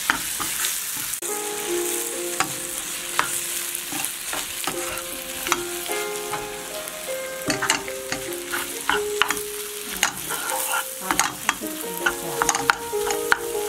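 Onion-tomato masala sizzling in a frying pan on a gas burner while it is stirred with a spatula. The spatula scrapes and knocks against the pan in frequent sharp clicks over a steady frying hiss, as the tomatoes are sautéed until soft.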